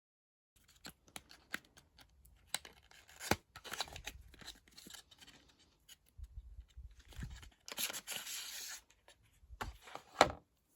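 Small cosmetic packaging being opened and handled by hand: a run of tearing and rustling with many small clicks, and one sharp click near the end, as the eyebrow 3-in-1 pen is taken out and pulled apart.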